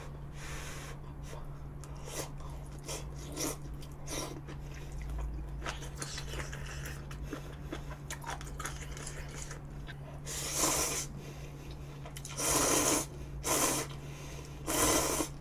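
A person chewing food with small wet clicks, then slurping noodles from a bowl of broth: four loud slurps in the last five seconds.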